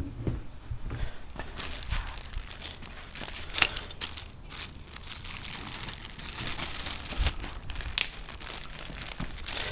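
Packaging crinkling and rustling as it is handled, with scattered clicks and knocks.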